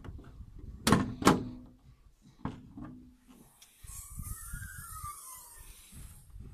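Opel Astra H bonnet being opened: two sharp metallic clunks with a short ringing about a second in, then a smaller knock, followed by fainter rattling as the bonnet is raised and propped.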